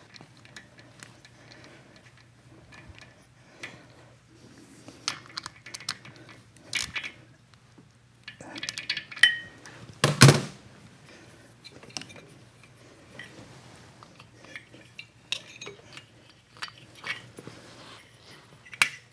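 Hand tools and small metal parts clinking and tapping as a carburetor is fitted to a motorcycle engine, with scattered clicks and one louder knock about halfway through, just after a brief metallic ring.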